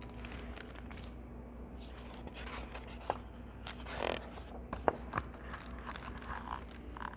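Faint paper rustling and a few light clicks as a picture book is handled and its pages are turned.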